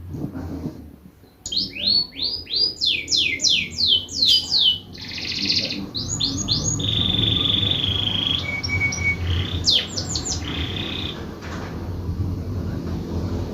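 Pet lovebird chirping loudly: a rapid run of sharp chirps, each sliding down in pitch, then a buzzy note, more chirps and a held high whistle. A low steady rumble runs underneath in the second half.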